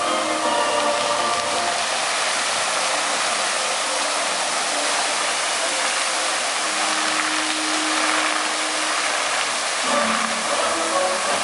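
Steady rushing hiss of tall fountain water jets spraying and falling back into the pool. Faint show music comes through at the start and again near the end.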